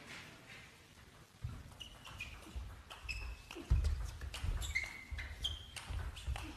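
Table tennis rally: the ball clicks sharply and repeatedly off the rackets and table, starting about a second and a half in. Short high squeaks of the players' shoes on the court floor and low footwork thuds come with the clicks.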